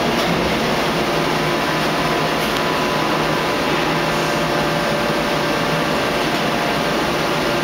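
Steady mechanical drone and hiss of a hydraulic forging press at work on a red-hot billet, heard through the glass of the operator's cabin, with no blows or impacts.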